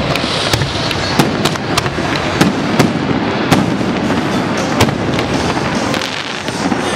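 Aerial fireworks display: irregular sharp bangs of bursting shells, roughly two a second, over a continuous dense noise of launches and crackle.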